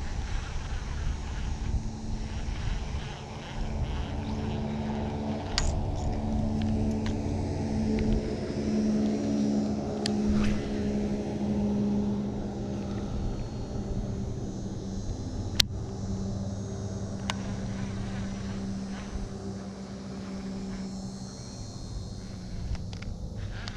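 A steady low mechanical drone, a motor running without a break, with a few sharp clicks now and then.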